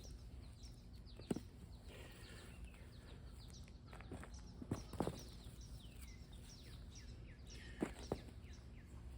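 Hands sorting through dry soil for potatoes, with a few scattered knocks as potatoes and dirt are handled. Birds chirp throughout in the background.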